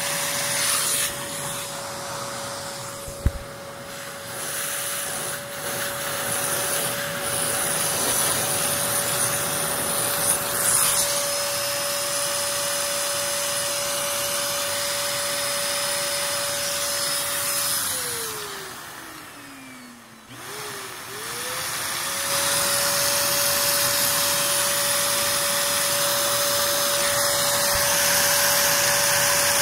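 Vacuum cleaner motor running with a steady whine, sucking through a hose to drive a Lego vacuum engine. About eighteen seconds in, the motor winds down, its pitch falling, then winds back up to full speed a few seconds later. A single sharp click comes about three seconds in.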